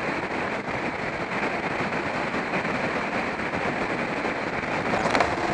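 Steady rush of wind and engine noise from a Yamaha Fazer FZS600 motorcycle cruising at about 60 mph, picked up by a helmet-mounted camera.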